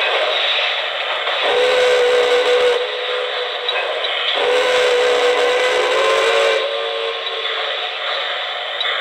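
Electronic Railsounds steam whistle of a K-Line New York Central J1 Hudson O-gauge model, sounding deep, over a steady steam hiss. It gives two blasts, the first about a second and a half in and the second, longer one about four and a half seconds in.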